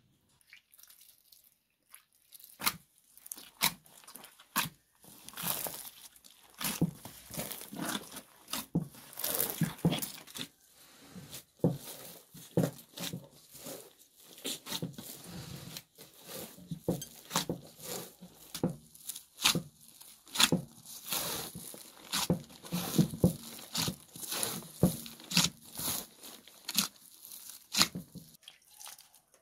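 Gloved hands punching down and kneading a large mass of risen bread dough in an aluminium basin: many irregular slaps and squelches of the sticky dough being pressed, pulled and torn, starting a couple of seconds in.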